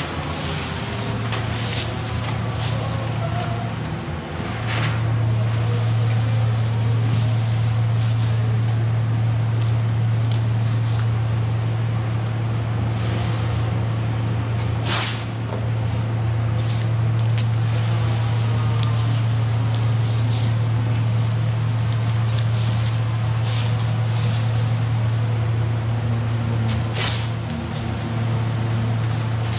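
A steady low machine hum from running shop equipment, with plastic masking sheet crinkling and masking tape being pulled off the roll in short rips over it.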